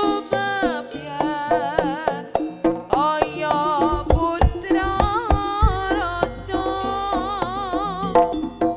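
Live Javanese jaranan gamelan music: a female singer (sinden) sings a wavering, ornamented melody over kendang hand-drum strokes. Deeper, heavier low drum strokes come in about four seconds in.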